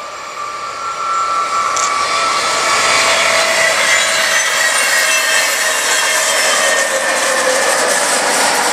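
Electric-hauled regional passenger train of n-Wagen coaches passing close by. The rush of wheels on rail grows louder over the first three seconds, then holds steady, with several high, steady ringing tones from the wheels over the noise.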